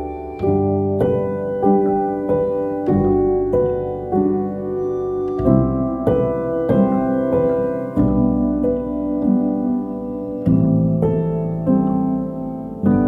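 Background piano music: single notes and chords struck one after another and left to ring out.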